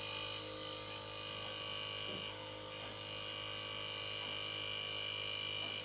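Inverter compressor of an LG 2.5 HP split air conditioner running steadily at a raised speed, a hum made of many constant tones. It is running again after its defective IPM (inverter power module) was replaced.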